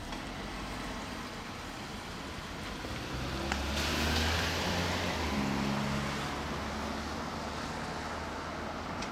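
MTR Island Line M-Train moving slowly: a low hum swells about three seconds in, with a few steady motor tones that shift in pitch and a hiss that peaks about a second later before easing.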